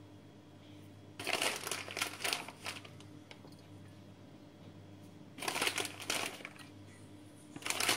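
Three bouts of crinkling from crinkly packaging being handled: about a second in, a shorter one past the middle, and another near the end. A faint steady hum sits underneath.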